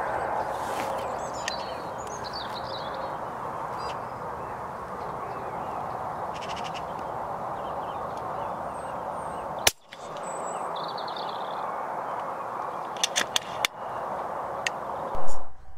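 Birds calling, in short chattering calls, over a steady outdoor hiss. A few sharp clicks come about two-thirds of the way in, and a brief loud thump comes just before the end.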